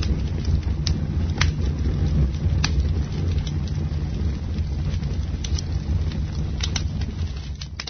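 Campfire burning: a steady low rumble of the flames with sharp crackles and pops scattered through it, the sound starting to fade right at the end.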